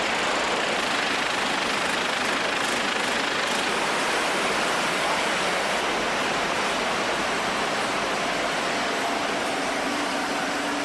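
Fish-stick factory production line running: a steady rushing noise of conveyors and packaging machinery, with a faint low hum joining near the end.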